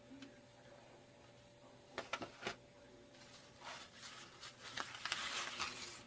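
Handling noise: a few light clicks about two seconds in, then crumpled paper rustling as it is handled, loudest near the end.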